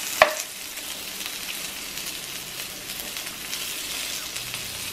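Flour-dredged chicken breasts shallow-frying in oil in a pan, a steady sizzle with fine crackles. About a quarter second in, a spoon clinks sharply against the pan.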